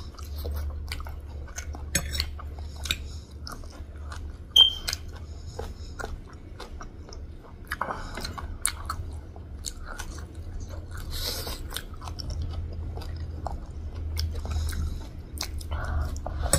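Close-up chewing of stir-fried pork noodles, with many small wet mouth clicks over a steady low hum. A short high ping stands out about four and a half seconds in.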